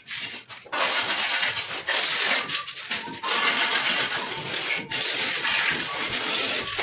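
A hand tool scraping and rubbing over cement mortar and concrete, as terrazzo dividing strips are set into the floor. The scraping comes in long stretches, with short pauses about three seconds in and again near five seconds.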